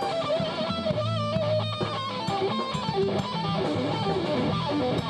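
Electric guitar playing a bluesy lead line, its notes bent and wavering, over a low bass part.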